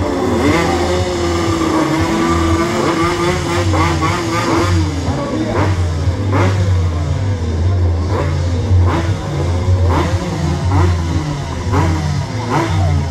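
Small 175 cc stock-class motorcycle engines revving at a drag-strip start line: one engine holds a steady rev for the first few seconds, then sharp throttle blips follow about once a second.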